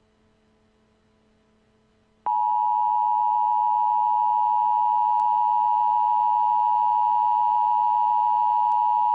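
Emergency Alert System attention signal: a loud, steady two-tone alert tone that starts abruptly about two seconds in, after faint low hum.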